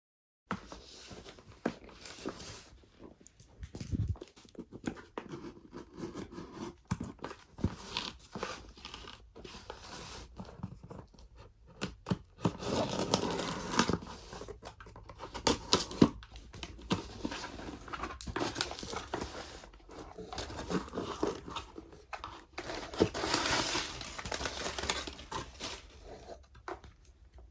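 Packaging being torn open and crinkled by hand, with irregular rustling, scraping and small clicks. The rustling is denser in a few stretches.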